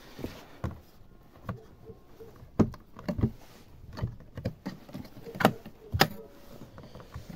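Irregular hollow plastic knocks and clunks as the white plastic collection bin of a garden shredder is gripped and pulled out from under the shredder's housing. The shredder itself is not running.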